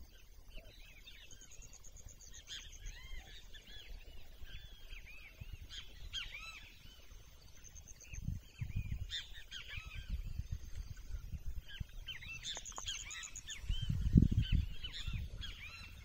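A busy chorus of many small birds chirping and calling over one another with short, arching notes, with a high, fast pulsed trill twice. Gusts of wind rumble on the microphone in the second half, loudest near the end.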